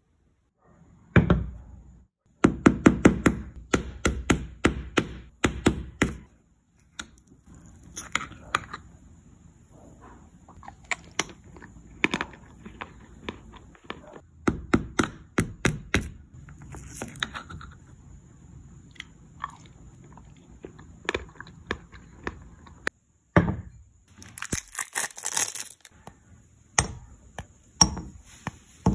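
Close-up food ASMR: the hardened chocolate shell on a cheesecake is tapped and cracked, with clusters of sharp cracks and crunches and softer scooping into the cream. Near the end comes a short burst of crinkling, then a dark chocolate bar snapped into pieces.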